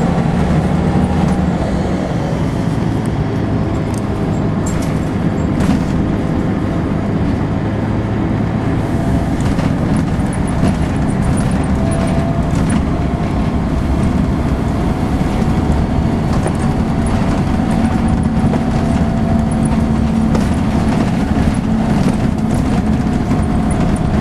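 Volvo B10BLE single-deck bus on the move, heard from inside the passenger saloon: a steady diesel engine and drivetrain hum whose pitch drifts slowly as it drives, with light clicks and rattles from the interior.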